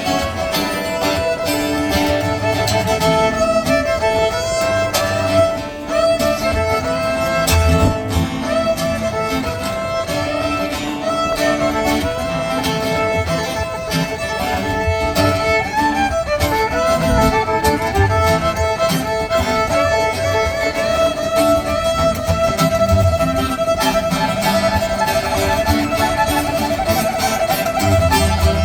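Instrumental break in a country-rock song: a fiddle plays the lead over strummed guitar and a band backing.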